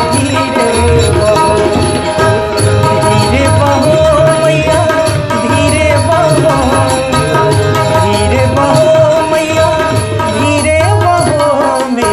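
Hindi devotional bhajan music: tabla keeps a steady beat under a sustained melody, in an instrumental stretch with no singing.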